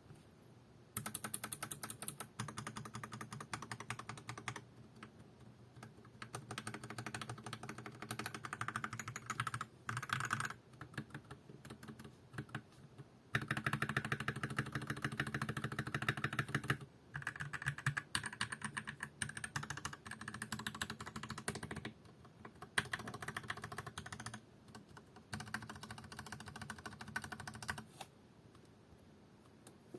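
Typing on a Tecware B68 mechanical keyboard with lubed and filmed OA linear switches: fast, continuous keystrokes in runs of several seconds, broken by short pauses. The typing stops a couple of seconds before the end.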